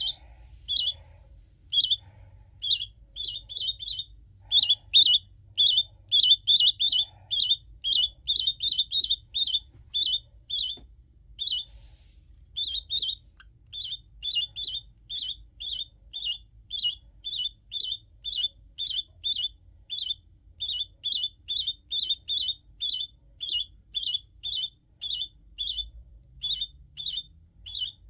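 Small parrot chick calling over and over: short, high, regular chirps about two a second, with a brief pause about eleven seconds in.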